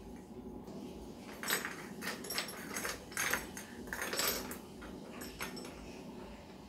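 Metal links of a chandelier's hanging chain clinking against each other as the chain is shortened by hand, in small clusters of clinks about a second apart.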